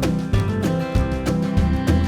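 Background music: a guitar-led country-style tune with a steady, even beat.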